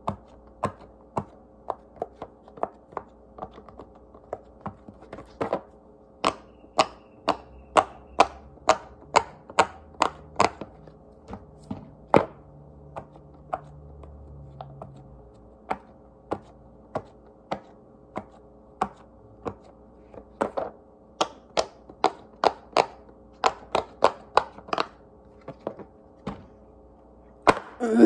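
Silicone push-pop bubble fidget toys (pop-its) being pressed bubble by bubble with the fingertips: a long run of sharp little pops, about two to three a second.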